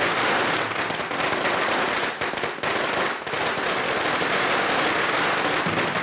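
A string of Chinese firecrackers going off in a rapid, continuous crackle of bangs.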